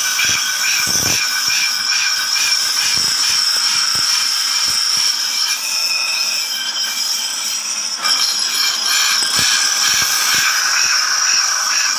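Steel trowel blade being ground against a belt-driven bench grinding wheel: a steady, high-pitched grinding hiss that eases a little and comes back louder about eight seconds in.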